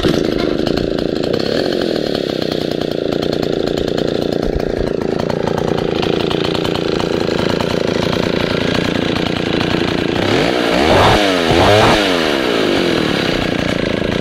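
Old Solo 642 two-stroke chainsaw catching on the starter-cord pull and running steadily, straight off with fresh fuel. It is revved up and back down twice, about ten and eleven seconds in.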